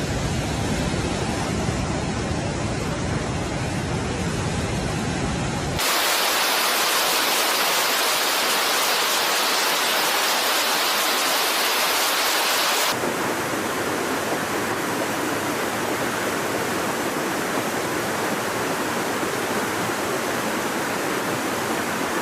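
Steady rushing of water in three stretches that change abruptly about 6 and 13 seconds in. The middle stretch is a brighter hiss, and the first has more low rumble.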